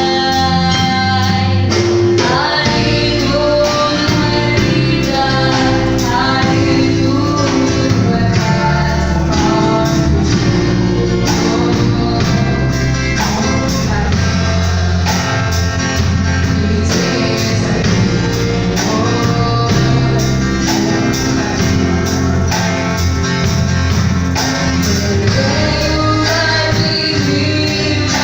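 Gospel song: singing voices over a band with a steady bass and a regular beat.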